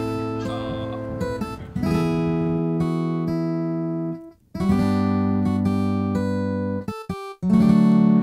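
Slow acoustic guitar music: chords strummed about every three seconds, each left to ring out.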